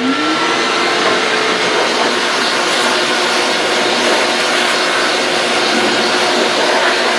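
Shop vacuum switched on and spinning up, its pitch rising briefly, then running steadily as its hose sucks sanding dust off a carved wooden sign.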